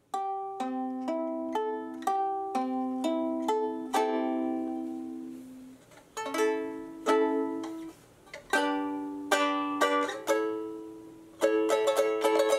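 Homemade tenor ukulele with a sake-box body being fingerpicked. It opens with single notes picked in a rising and falling arpeggio, about two a second, each left to ring. Then come spaced plucked chords, and quicker strumming near the end.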